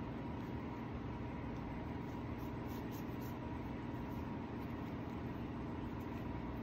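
Steady whirring hum of a through-wall room air conditioner running, even and unbroken.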